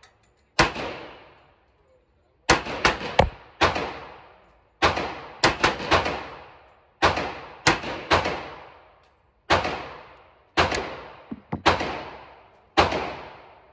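FN FNX-45 Tactical .45 ACP pistol firing: about twenty shots, some single and some in quick runs of two to four, each trailing off in a fading echo.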